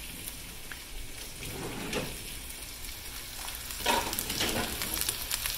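Chopped onion and bell pepper sizzling in a hot braiser, a steady frying hiss. A wooden spoon stirs through them, louder about two seconds in and again near four seconds.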